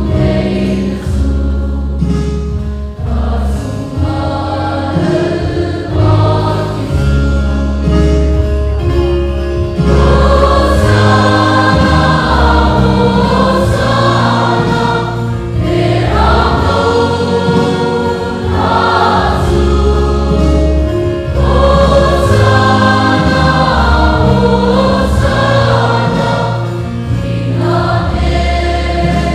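Large mixed choir of men and women singing a gospel hymn in parts, over sustained low accompaniment from keyboard and drums.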